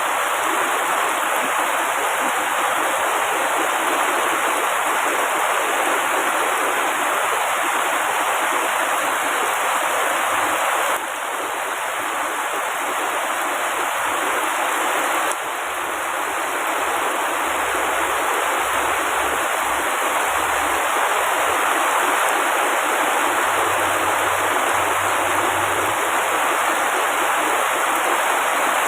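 Heavy rain pouring steadily onto tree foliage, a dense even hiss; the level drops slightly and abruptly about eleven seconds in and again at about fifteen seconds.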